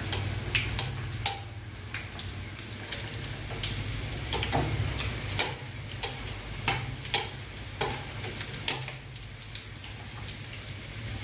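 Sliced shallots frying in oil in a wok: a low sizzle with irregular pops and crackles every half second or so.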